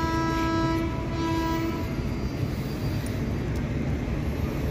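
Indian Railways locomotive horn sounding one steady note, broken briefly about a second in and stopping a little later, over the steady rumble of an approaching train.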